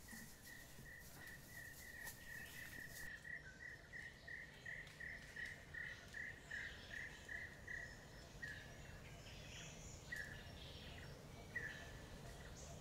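Faint wildlife call: a short high note repeated steadily about three times a second, which thins out to scattered single calls after about eight seconds.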